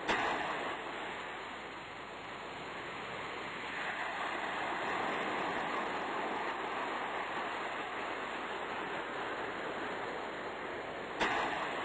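Sea surf washing, a steady rush of water noise that swells in the middle, with a sharp click at the very start and another near the end.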